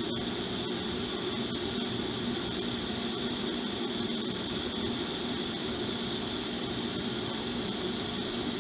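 Steady hiss and buzz of a TIG welding arc, running without a break while a sleeve is welded onto a cracked motorcycle frame.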